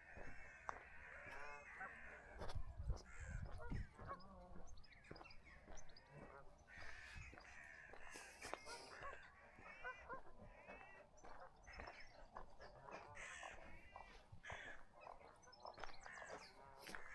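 Birds calling, with many harsh, short calls repeated all through.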